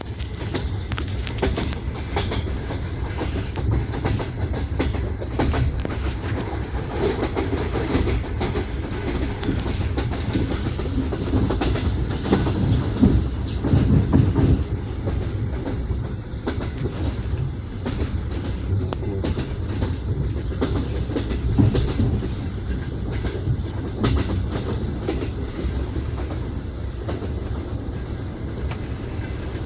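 Wheels of a moving passenger train clattering rhythmically over rail joints, heard from inside an open-plan sleeper carriage, over a steady low running rumble. The knocking grows louder about halfway through.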